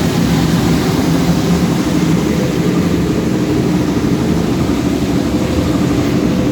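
A machine running steadily: a loud, even hum with a low drone that does not change.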